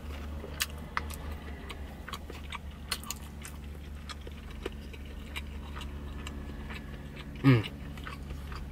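A person chewing and eating, with scattered small clicks over a steady low hum, and a short voiced sound about seven and a half seconds in.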